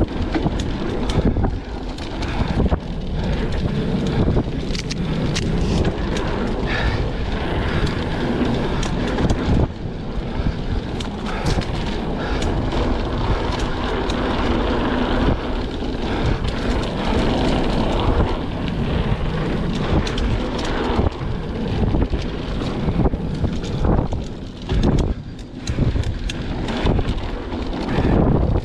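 Mountain bike ridden over a dirt singletrack, heard from a camera on the rider: wind buffeting the microphone and tyres rolling over dirt, with frequent clicks and rattles from the bike. The noise drops briefly a few times near the end.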